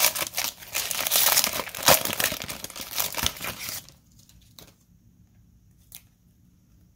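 Foil trading-card pack wrapper being torn open and crinkled, loud and crackly for about four seconds. Then it stops, leaving only a couple of faint ticks as the cards are handled.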